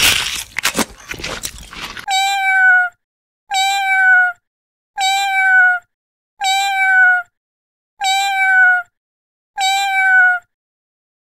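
Cat meow sound effect: the same meow repeated seven times, about every second and a half, each dropping slightly in pitch at its end. It follows about two seconds of crunchy, crackling eating noise.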